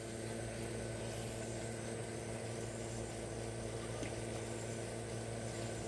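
Steady mechanical hum with an even hiss underneath, unchanging throughout.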